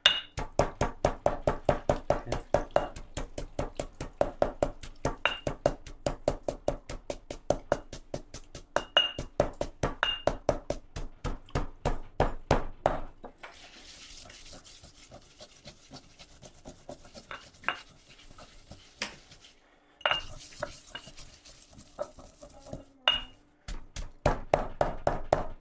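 Stone pestle pounding dried chilies and spices into curry paste in a stone mortar, sharp rapid strikes about five a second. Midway the pounding drops off to occasional strikes over a soft hiss for several seconds, then picks up again near the end.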